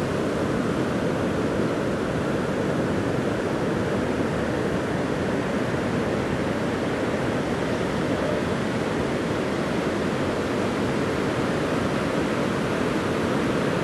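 Ocean surf breaking, a steady, even noise with no lulls or distinct wave crashes.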